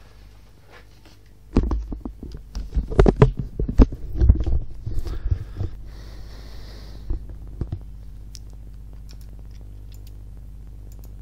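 Handling noise from a headset with a boom microphone being put on and adjusted: about four seconds of loud, rumbling rubs and knocks, then two soft knocks and a steady low hum.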